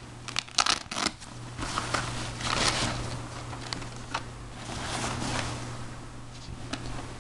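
A nylon camera bag being unzipped and handled. There are a few light clicks in the first second, then a scraping, rustling zip-and-fabric noise that swells twice, about two and a half and five seconds in.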